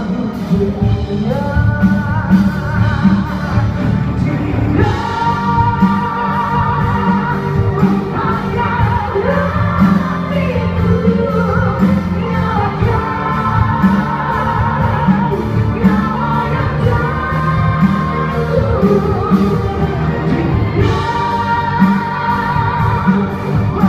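Music: an orchestral arrangement of a Malay pop ballad, with a melody line carrying vibrato over a steady beat.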